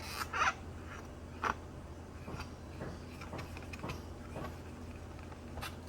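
Light, irregular clicks and scrapes of a Wahl clipper's blade and plastic parts being handled and cleaned, over a steady low hum.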